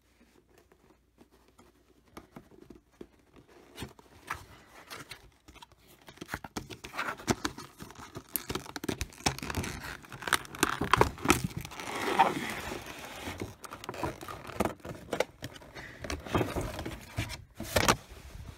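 Hands opening a cardboard collectible-figure box with a clear plastic insert: irregular rustling, crinkling, clicks and scrapes of cardboard and plastic packaging. It is nearly quiet at first, then gets busier and louder after a few seconds.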